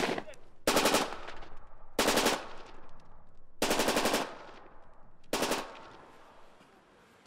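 Automatic fire from Kalashnikov-type assault rifles: four short bursts about a second and a half apart, each with an echoing tail, then the last echo dies away.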